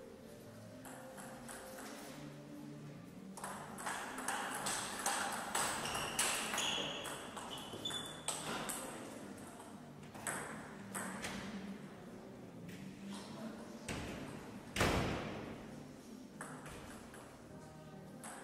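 Table tennis rally: the ball clicks back and forth off the rackets and the table several times a second, then stops. A single louder sudden knock comes near the end.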